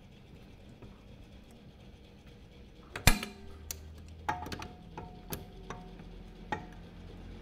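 Socket wrench with a 12 mm socket clinking against the exhaust bolt and surrounding metal as it is worked onto the bolt: one sharp knock about three seconds in, then several lighter, briefly ringing metal clicks.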